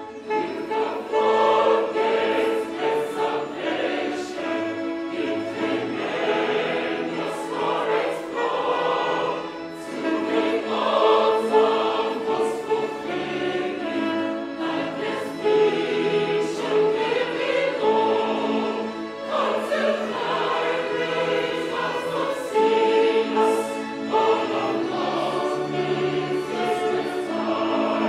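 Mixed church choir singing a hymn in full harmony, accompanied by violins and electronic keyboards. The choir comes in just after the start, following an instrumental passage.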